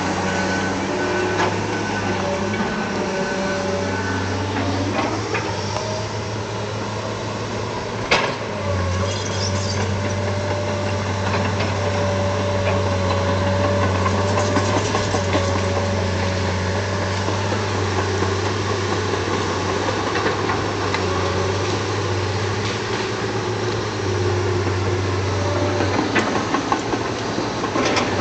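Engine running steadily with a low, even hum, and a single sharp knock about eight seconds in.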